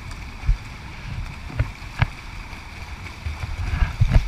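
Swimmers splashing in an indoor pool, heard muffled under a low rumble, with a few dull knocks that come more often near the end.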